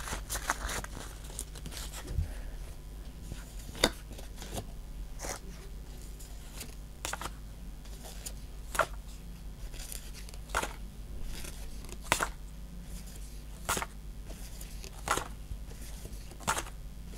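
Pokémon trading cards being handled one at a time, each card slid off the stack and snapped onto the front with a short, sharp papery click, about one every second and a half, over a steady low hum.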